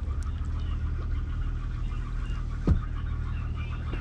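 Steady low hum of a canal narrowboat's diesel engine, with one brief low thump about two-thirds of the way through.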